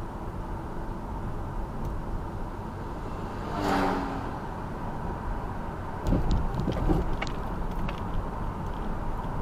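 A car passes by, its sound swelling and then dropping in pitch as it goes, over a steady rumble of road traffic. A few short clicks and low thumps follow near the middle.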